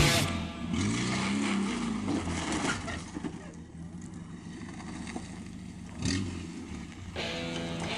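Off-road 4x4's engine revving up and down, then running more quietly with a low hum. A rock track cuts off just after the start, and music comes back in near the end.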